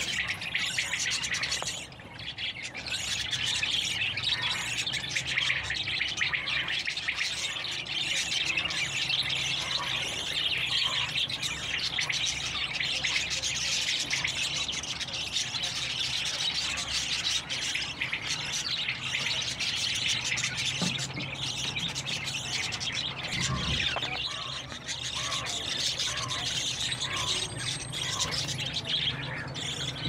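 Dense, unbroken chorus of many caged small birds, canaries among them, chirping and twittering all at once. For two stretches, a lower short call repeats about once a second.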